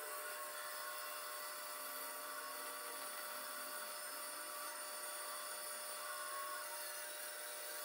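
Pegas scroll band saw running steadily as its narrow blade cuts through a plywood panel.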